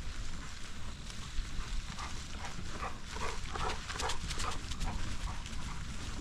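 A dog barking: a quick run of short, pitched barks from about two seconds in until about five seconds in, over a steady low rumble.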